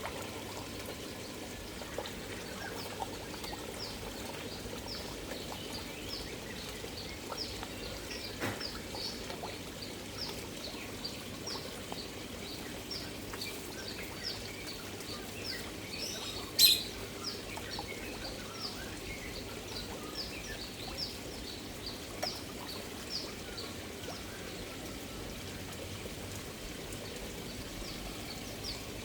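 Koi pond water moving and trickling steadily, with a small bird chirping rapidly and repeatedly in the background. One sharp click stands out about halfway through.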